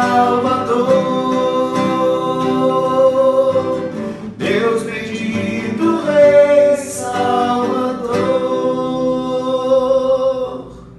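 Worship song closing: a voice singing long held notes over acoustic guitar in two phrases, the music ending about ten and a half seconds in.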